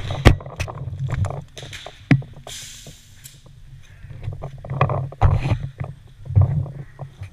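Handling noise on a camera mounted to a paintball marker that is being carried on the move: irregular knocks and thuds over a low rumble, with a short hiss near the middle.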